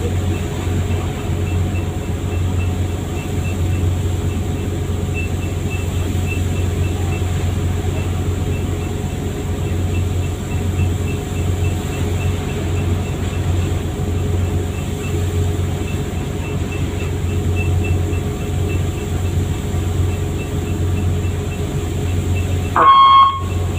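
Fishing boat's engine running with a steady low drone and a faint regular ticking. Near the end a brief, louder, higher-pitched sound cuts in.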